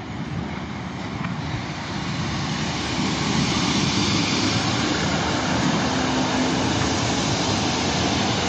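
GWR diesel multiple unit running into the platform, its engine and wheels rumbling as it draws close and passes. The noise grows louder over the first three seconds, then holds steady.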